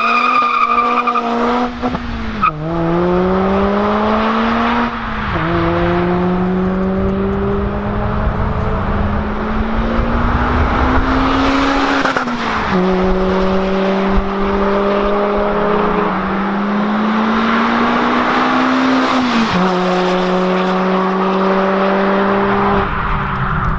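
Mazda MX-5 ND2's 2.0-litre four-cylinder engine with a sport exhaust, accelerating hard. The revs climb, then drop sharply at each upshift, about four times.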